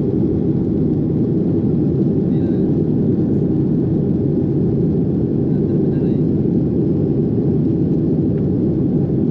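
Steady low rumble of an airliner's engines and airflow heard inside the passenger cabin, holding an even level throughout.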